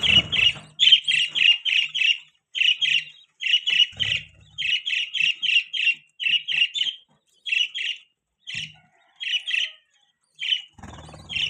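Budgerigar chirping: short, rapid chirps in quick runs of two to four, repeated over and over with brief pauses.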